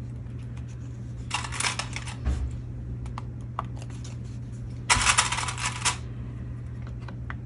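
Paper and laminated craft pieces being handled: two spells of rustling, the louder one about five seconds in, with scattered light clicks, over a steady low hum.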